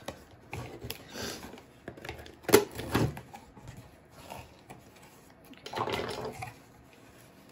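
A cardboard box and its packaging being opened by hand: irregular rustling and scraping with a few sharp knocks, the loudest a pair about two and a half and three seconds in.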